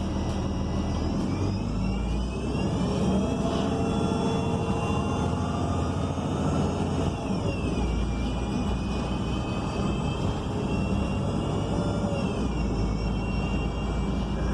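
Drivetrain of an ENC Axess bus with a Cummins Westport L9N natural-gas engine and Voith D864.6 automatic transmission, heard from inside as the bus accelerates: a whine climbs in pitch from about a second and a half in over a steady low rumble, then drops in pitch twice, about seven and twelve seconds in, as the transmission shifts up.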